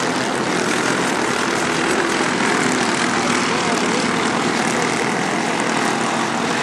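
Racing kart engine running steadily at speed during a race.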